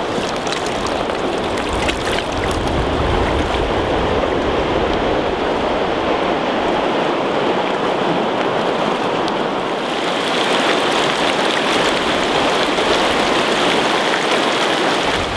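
Shallow river rapids running over a rocky bed: a steady, even rush of water.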